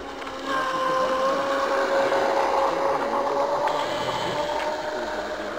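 Radio-controlled Formula 1 tunnel-hull catamaran model boat running at speed. Its motor gives a steady whine over the hiss of the hull on the water. It gets louder about half a second in and slowly fades toward the end.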